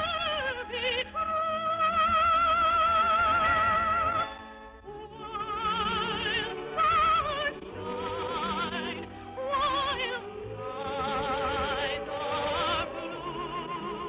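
Operetta singing in a classical style with strong, wide vibrato over musical accompaniment, with long held notes. The music thins and drops in loudness about four and a half seconds in, then builds again.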